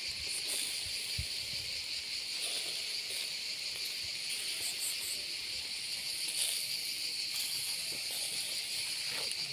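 Steady high-pitched chirring of an insect chorus, unbroken throughout.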